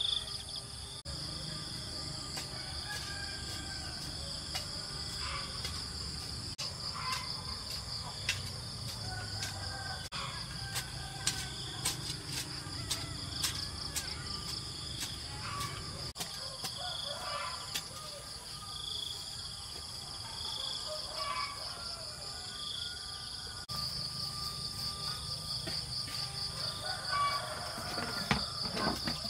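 Insects chirring steadily in a high pulsing drone, with a sharper chirp repeating every couple of seconds, under scattered light clicks and knocks.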